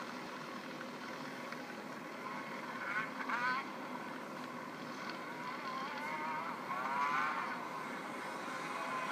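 Engines of two Polaris RZR side-by-sides, a turbocharged RZR 800 and a stock RZR 900, both parallel-twins, running hard up a sand dune. They are heard from far off as a steady drone, with wavering higher tones rising over it about three seconds in and again around seven seconds in.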